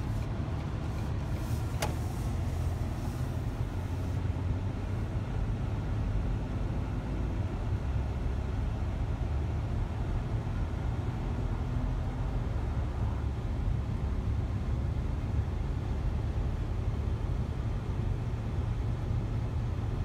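Steady low road and engine rumble inside a moving vehicle's cabin, with a brief sharp click about two seconds in.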